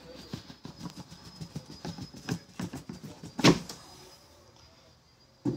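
A cardboard packaging box being handled and shifted on a table: a run of light taps and scrapes, then one louder thump about three and a half seconds in.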